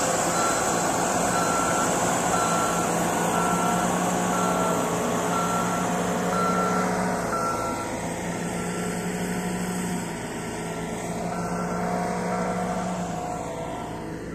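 Caterpillar single-drum vibratory soil compactor's diesel engine running steadily, with its reversing alarm beeping about three times every two seconds; the beeping stops past the middle, then sounds a few more times.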